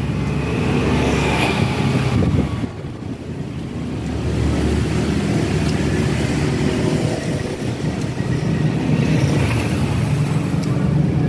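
Motor-vehicle traffic: a continuous low engine rumble that eases off about three seconds in and then builds again.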